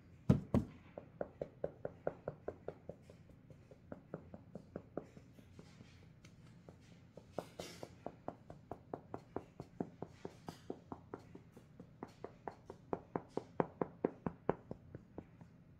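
Cosmetic brush pouncing paint onto a vinyl reborn doll body: quick, even soft taps at about three to four a second, with short pauses between runs. One louder knock comes just after the start.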